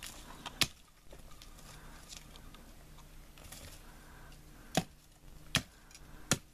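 A large blade chopping into the base of a standing sapling: four sharp, short chops into the wood, one about half a second in and three more in quick succession near the end.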